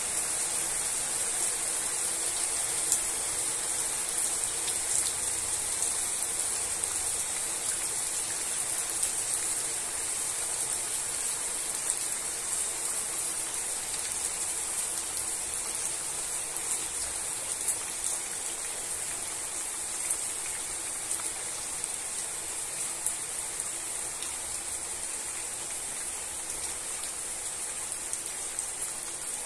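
Steady rain falling on tree leaves and grass: an even hiss with scattered sharp ticks of single drops striking close by.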